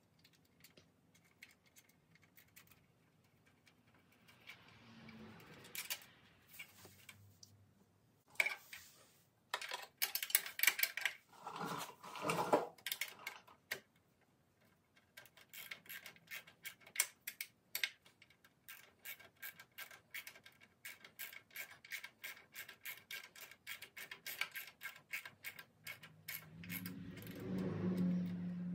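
Ratcheting wrench clicking steadily, a few clicks a second, as a bracket bolt is run in, after scattered metal knocks and clanks of the wrench and bracket. A low hum comes in near the end.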